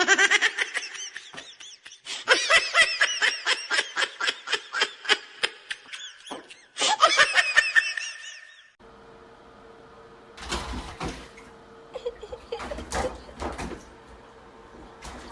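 High-pitched laughter in rapid, repeated bursts that stops about nine seconds in. After that comes a steady low hum with a few short knocks or rustles.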